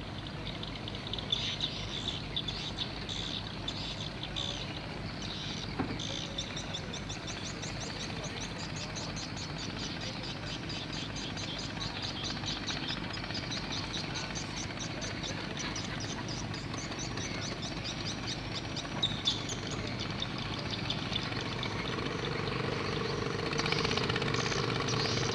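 Small birds chirping in quick repeated series over a steady low engine drone. Near the end a steady motor note comes in and grows louder.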